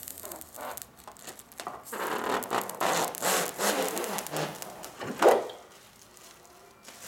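Protective plastic film being peeled off a plexiglass frame sheet: crackling and rustling that builds about two seconds in, with one loudest crackle a little after five seconds, then fades.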